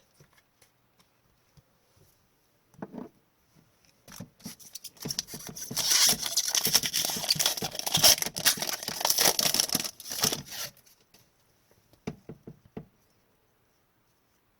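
Hockey card pack wrapper being torn open and crumpled: a dense crackling rustle lasting about six seconds, with a few light taps of cards being handled before and after it.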